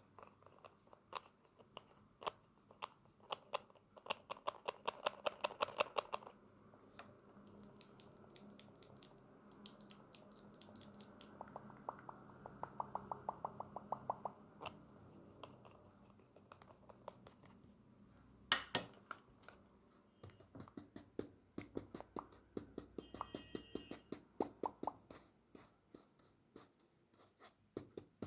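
Close-miked ASMR tapping and clicking on makeup items: scattered single taps, with two quick runs of rapid tapping and one louder click about two-thirds of the way in.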